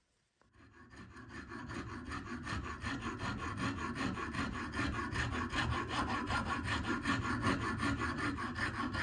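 Fast, even rhythmic scraping, like a file or rasp working, fading in about half a second in and growing louder over the first few seconds.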